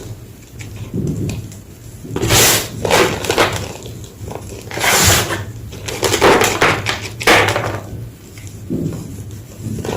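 Large slabs of gym chalk crunching and breaking in a series of separate crunches, several of them loud, through the middle of the stretch.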